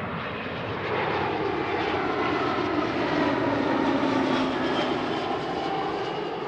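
Jet airliner on final approach passing close by, its engine noise swelling to a peak around the middle and fading toward the end, with tones that fall slightly in pitch as it goes past.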